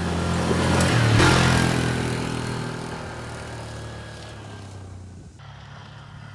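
A motor vehicle's engine running, louder about a second in and then fading steadily away, as if passing and moving off.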